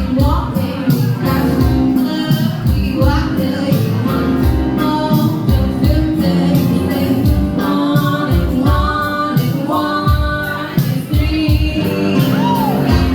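A song with a singer over a band and a steady drum beat.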